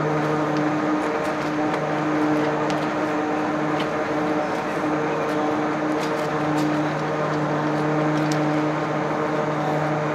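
A steady mechanical hum on one low pitch, over a haze of noise, with a few faint ticks.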